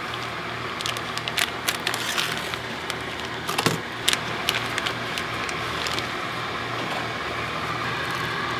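Kitchen scissors snipping through the plastic film on a tray of frozen shrimp, then the film crinkling as it is peeled back: a run of sharp clicks and crackles that stops about halfway through, over a steady background noise.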